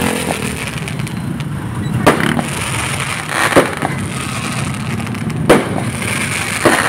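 Aerial fireworks bursting overhead: about four sharp bangs a second or two apart, over a steady low rumble.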